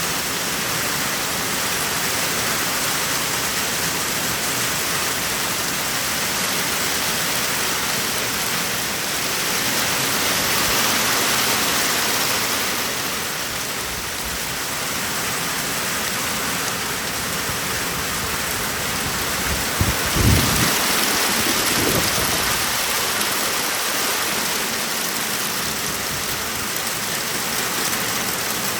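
Heavy rain mixed with hail falling in a steady, dense hiss, with a short low rumble about two-thirds of the way through.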